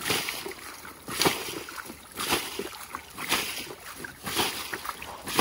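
Water splashing in a shallow ditch about once a second, the rhythm of water being bailed out by hand to drain it for catching fish.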